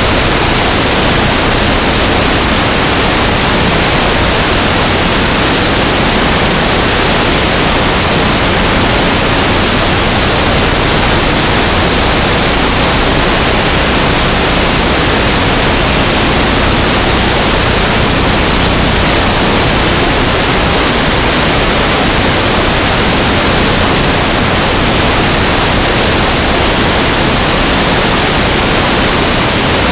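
Loud, steady hiss of static noise filling the whole sound track, even from lowest to highest pitch, with no game sounds coming through it.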